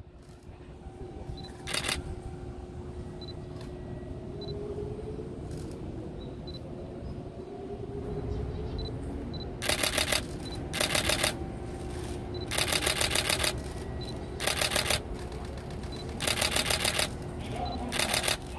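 Camera shutters firing in rapid continuous bursts: one short burst about two seconds in, then a string of bursts from about ten seconds on, as several cameras shoot at once. A faint steady hum runs underneath.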